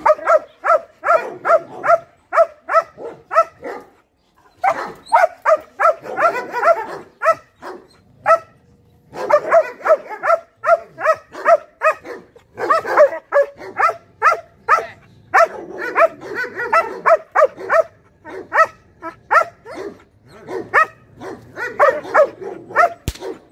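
Young German Shepherd barking rapidly and repeatedly, several high barks a second in long runs broken by short pauses. There is a sharp click near the end.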